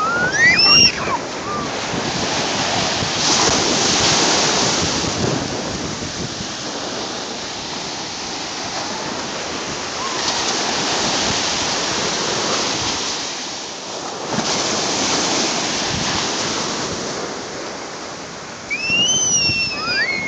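Small waves breaking and washing up a sandy beach, a steady rush of surf that swells louder every several seconds. A child gives a high, sliding squeal just after the start and again near the end.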